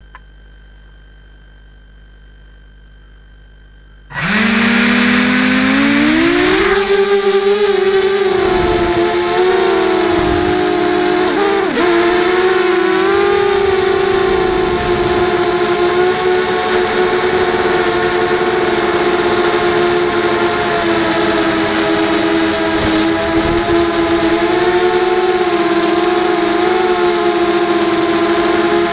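Racing quadcopter's brushless motors and propellers, heard from the onboard camera. A faint steady hum for about four seconds, then the motors spool up suddenly at takeoff, the whine rising in pitch over a few seconds. It then holds a steady whine that wavers with the throttle, with a short pitch dip about twelve seconds in.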